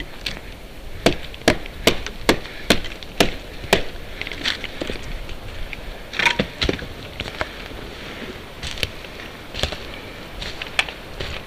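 Dry twigs and dead conifer branches snapping as someone pushes through thick forest undergrowth: a string of sharp cracks, about two a second at first, then more scattered.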